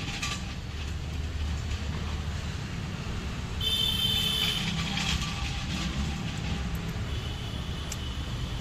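Steady low rumble of motor vehicles running, with a brief high-pitched ringing about three and a half seconds in and a few faint clicks.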